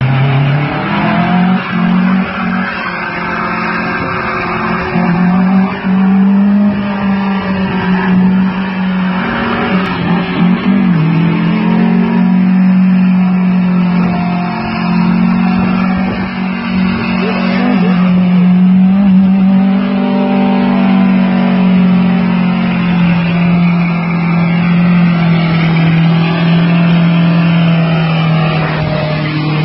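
Datsun 160J SSS engine held at high revs through a burnout, its rear tyres spinning on the tarmac. The revs waver and dip briefly about ten seconds in and again near eighteen seconds, then climb back.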